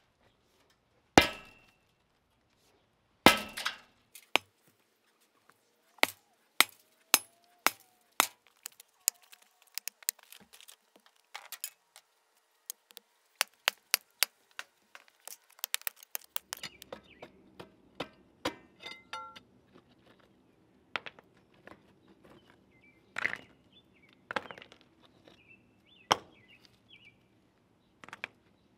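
An irregular series of sharp knocks and clinks: two loud strikes with a short ring near the start, then many lighter, quicker clicks, several a second at times. A low steady hum joins a little past halfway.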